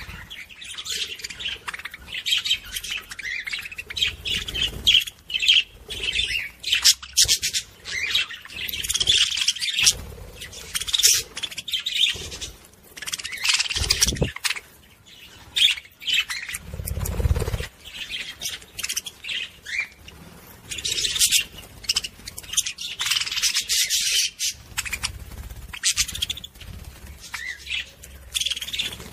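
Budgerigar warbling: a busy, continuous stream of high chirps, chatter and squeaks with brief pauses. Two dull low thumps come about halfway through.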